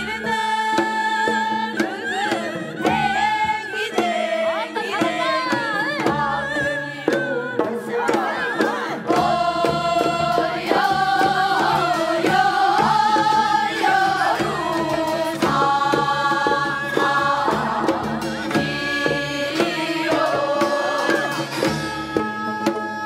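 Korean traditional singing with drum accompaniment: long held notes that waver and bend in pitch, over regular drum strokes.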